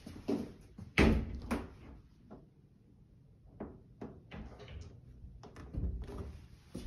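Pantry door being handled: a sharp knock about a second in and another just after, then lighter clicks and bumps.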